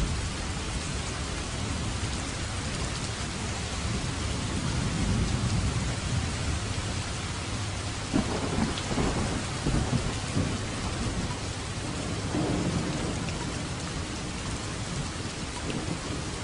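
Steady heavy rain hissing, with rolling thunder rumbling underneath; the thunder swells into crackling rolls from about 8 to 13 seconds in.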